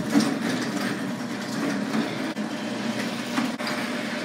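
Electric garage door opener running as the sectional door rolls up its tracks: a steady mechanical rumble with a low hum, starting abruptly.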